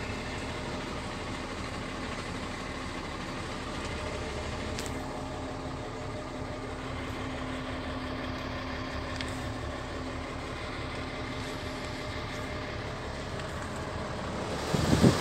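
Ford dump truck's diesel engine idling steadily, heard from inside the cab. Near the end a louder, uneven rumbling with knocks sets in.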